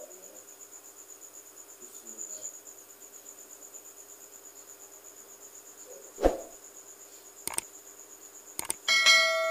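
A cricket chirping steadily in a fast pulsing trill over a low hum. A single thump comes about six seconds in, then two quick clicks, and near the end a ringing bell-like ding from a subscribe-button animation.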